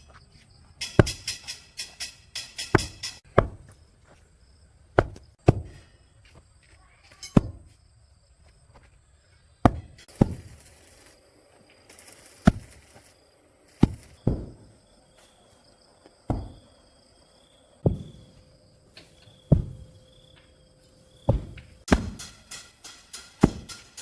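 A hand digging tool chopping into soil in heavy, unevenly spaced blows every couple of seconds, with runs of quicker strikes near the start and end.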